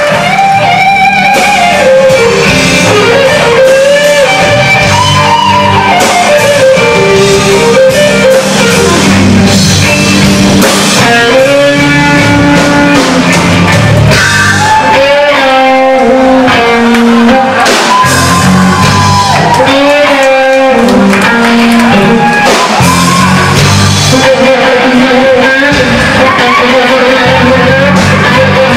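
Live electric blues played loud through amplifiers: an electric guitar playing lead lines full of bent notes over bass and drums.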